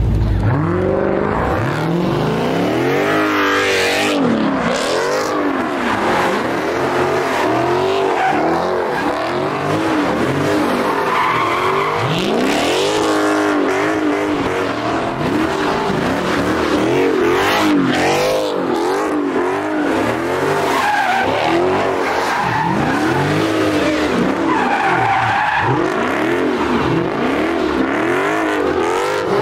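Dodge Charger doing donuts: the engine revs up and down over and over in rising and falling sweeps, over the continuous screech of rear tyres spinning and sliding on pavement.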